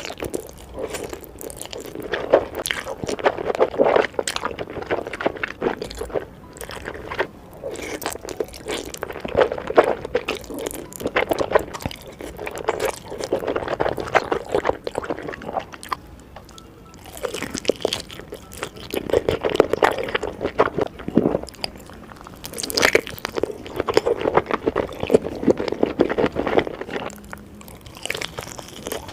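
Close-miked eating sounds: wet chewing and crunching of food, coming in bursts of a second or two with short pauses between.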